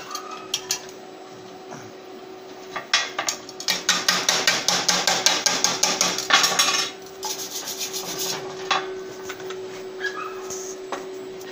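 Steel tube and weld being cleaned with a chipping hammer and wire brush. A run of fast, even scraping and knocking strokes starts about three seconds in and lasts about four seconds, then gives way to a few lighter strokes.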